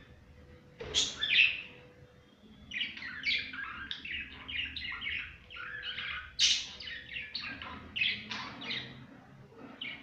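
Budgerigars chirping and chattering: a loud call about a second in, then a run of quick chirps and warbles from about three seconds in that eases off near the end.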